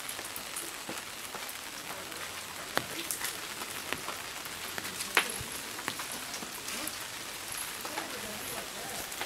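Steady hiss of falling rain, with scattered louder drops landing.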